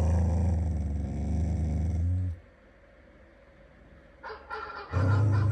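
Ring doorbell chime tone made of a recorded dog sound, played twice. Each play lasts about two seconds, with a pause and a few light clicks between them.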